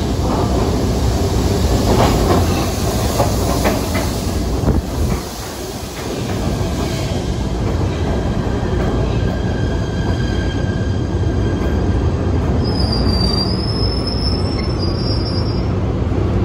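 PATH PA5 subway train moving through the station: a loud, steady rumble of wheels on rail. Thin high whines join about halfway through, and a louder high squeal lasts a few seconds near the end.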